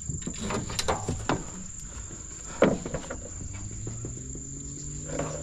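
Insects keep up a steady, high-pitched buzz, over several sharp knocks, the loudest about two and a half seconds in.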